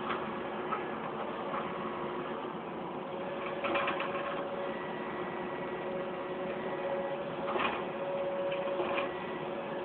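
Heavy diesel machinery running steadily at a distance, a low even drone, with a couple of brief metallic knocks about a third of the way in and again near the three-quarter mark.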